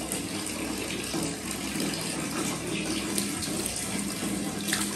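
Water running steadily from a tap. Near the end, water poured from a plastic mug splashes over a wet dog's coat.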